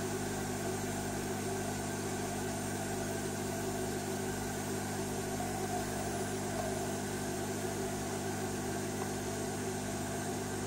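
Steady background hum with several even tones, unchanging throughout.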